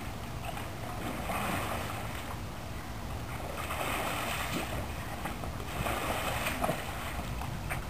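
Pool water splashing as a person sweeps it by hand at a swimming Sheltie, in repeated surges a couple of seconds apart.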